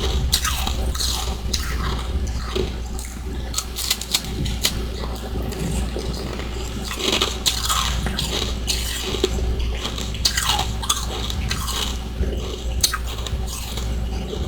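Close-miked biting and chewing of freezer frost and ice chunks: irregular crisp crunches, several a second at times, over a steady low hum.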